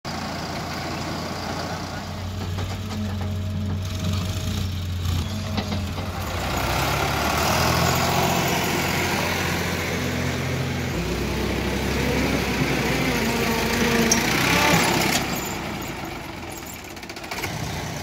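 Diesel engines of a farm tractor and a backhoe loader running, the engine note shifting in pitch a few times, with people's voices talking over it.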